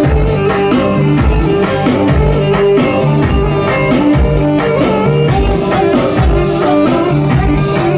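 Roman havası (Turkish Romani dance music) playing loudly, with a steady drum beat under a melodic instrument line.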